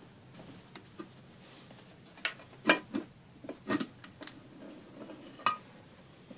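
Scattered light metallic clinks and knocks as a Ural motorcycle engine's crankshaft is turned and worked out through the crankcase opening by hand, the loudest a little under three seconds in.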